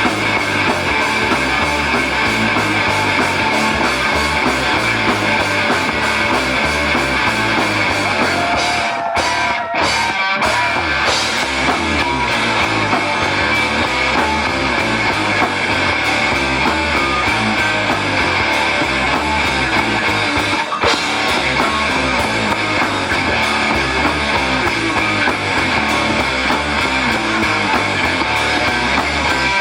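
Live rock band playing loud guitar-driven music with a drum kit, the band breaking off briefly about nine seconds in before playing on.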